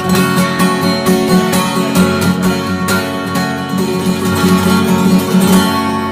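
Background music played on acoustic guitar, with regular strokes across the strings.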